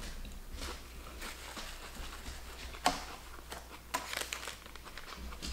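Close-up chewing of a mouthful of veggie-patty sub sandwich: soft, wet mouth sounds, with two sharper clicks about three and four seconds in.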